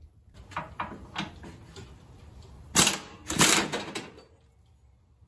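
A few light metallic clicks, then two loud bursts from a pneumatic air hammer, a short one and then a longer one of about half a second, driving a pin out of a steel mower bracket.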